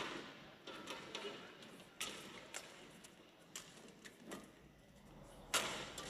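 Badminton rally: a serve and then a quick exchange of sharp, crisp racket strikes on the shuttlecock, roughly one every half second to a second, with a louder hit near the end.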